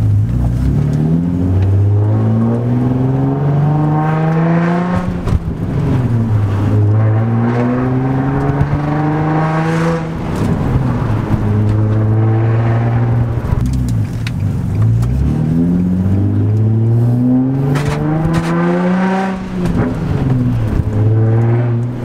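An Infiniti G35 coupe's 3.5-litre V6 accelerating through the gears, heard from inside the cabin. The engine pitch climbs for a few seconds and then falls sharply at each upshift, several times over.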